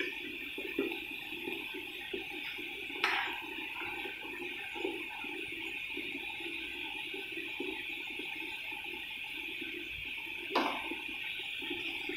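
Sugar-and-butter syrup boiling hard in a small non-stick pan: a steady hiss with irregular bubbling pops, a syrup thickening toward the bead stage. Two sharp clicks with a short ring sound, about three seconds in and near the end.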